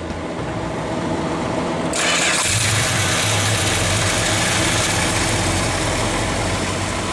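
1967 Dodge Coronet 500's 383 cubic-inch big-block V8 cranking on the starter, catching about two seconds in and settling into a steady idle.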